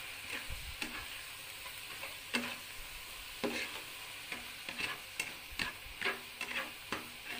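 Chopped napa cabbage and tomato cooking without oil in a pan, sizzling in the liquid the vegetables have released. A spatula scrapes and knocks against the pan about ten times at irregular intervals as the vegetables are stirred.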